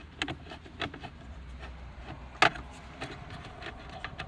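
Small clicks and handling noises of a screwdriver at the car's centre-console trim screws, with one sharp click about halfway through.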